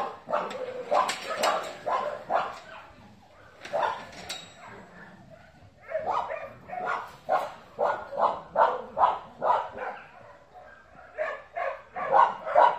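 Tan dog barking at a cat in runs of short, sharp barks, two or three a second, with pauses of a second or two between runs.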